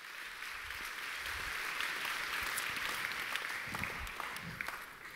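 Audience applauding: a crowd's clapping that builds up over the first second, holds steady, and dies away near the end.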